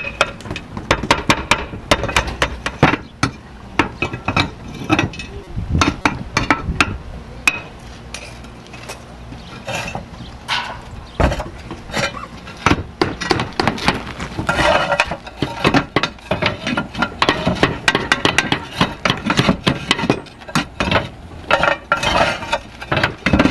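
S-profile roof tiles clinking and knocking against each other as they are set in place on the battens, with sharp hammer taps among them. The clicks come in quick irregular runs, some ringing briefly.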